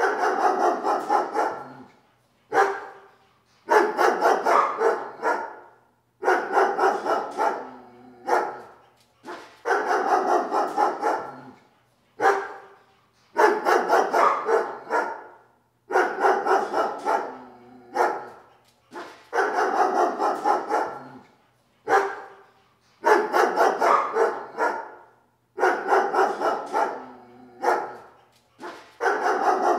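Dog barking in quick-fire bouts of about two seconds, one bout every two to three seconds, with a single short bark between some of them.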